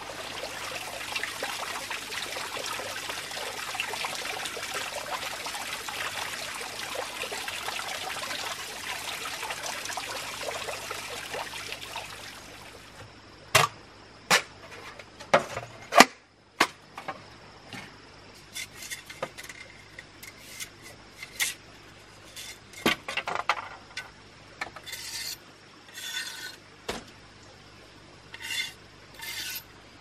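A shallow forest stream trickling steadily, stopping abruptly about 12 seconds in. After that come irregular sharp hollow knocks and clicks from green bamboo poles being handled, the loudest about 16 seconds in.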